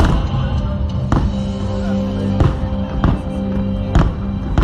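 Aerial firework shells bursting in a run of about six sharp bangs, a second or so apart, over the fireworks show's steady soundtrack music.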